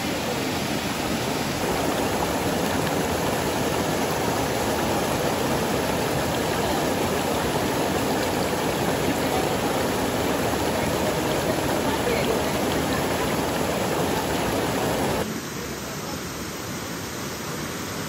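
Waterfall's rushing water, a steady, even rush. About fifteen seconds in it drops abruptly to a quieter, thinner rush.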